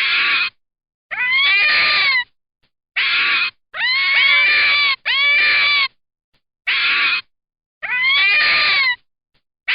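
An animal calling again and again: about eight separate high-pitched cries, each under a second long and rising then falling in pitch, with clean silences between them.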